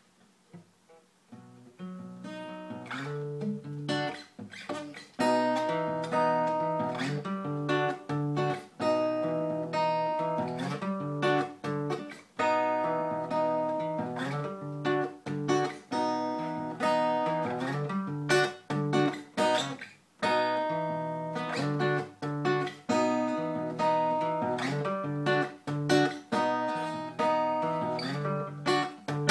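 Solo acoustic guitar, starting quietly about a second and a half in, then playing a steady, repeating pattern of chords and plucked notes.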